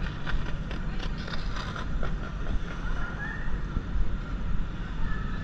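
Busy city street ambience: steady low traffic rumble, with a run of short clicks in the first two seconds and faint high tones drifting over it.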